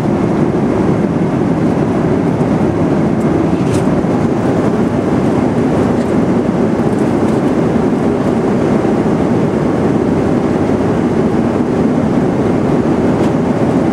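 Steady airliner cabin noise in flight: the even, low rush of engines and airflow, unchanging throughout.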